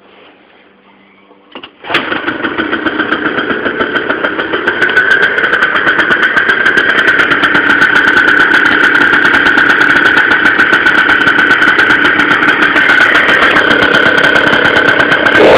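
Tuned two-stroke scooter engine with Stage6 parts starting after a couple of clicks about two seconds in, then idling with a steady, even pulse that gets a little louder around five seconds in.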